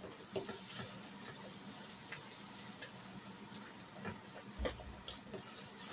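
Eggs frying faintly in a nonstick skillet, with a spatula scraping and tapping against the pan a few times. A low thump comes about four and a half seconds in.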